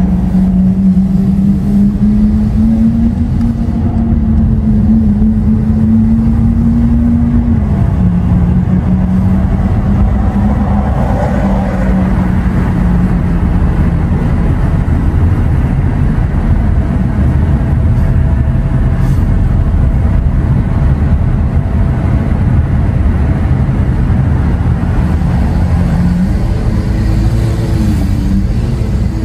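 Lamborghini Aventador SV's V12 engine with Capristo exhaust running steadily with a low drone. Its pitch edges up a couple of seconds in, drops back after about seven seconds, and rises again near the end.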